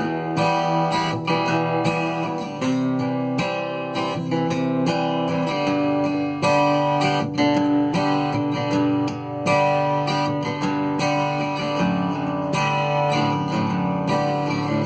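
Cort GA5F-MD acoustic-electric guitar played unplugged, strumming open chords and changing chord every few seconds.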